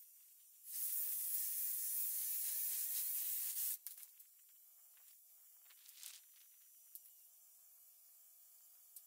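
Handheld cordless power tool running at full speed and cutting into old barn wood. It makes a high buzzing noise for about three seconds, then cuts off suddenly, followed by a few faint clicks.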